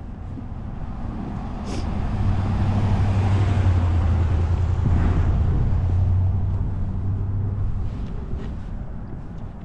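A car driving past on the road, its engine and tyre noise building over the first few seconds and fading away toward the end.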